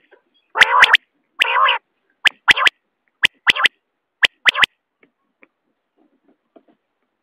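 Common quail calling: a run of short, sharp notes in pairs and threes, with two longer, harsher calls about a second in, stopping about four and a half seconds in.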